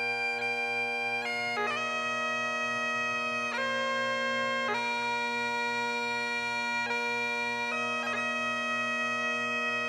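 Bagpipes playing a slow melody over a steady drone, long held notes joined by quick grace notes.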